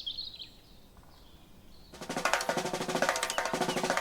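Background music with a drum-heavy beat, starting about two seconds in after a near-quiet stretch.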